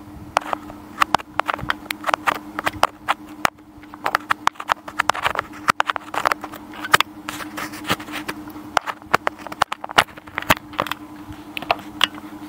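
Rapid, irregular clicks and knocks close to the microphone, several a second, over a steady low electrical-sounding hum.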